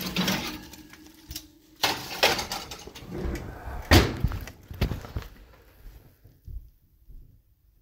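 A pizza pan and oven door being handled in a kitchen: a run of sharp knocks and metal clatter over the first five seconds or so, then a few fainter knocks.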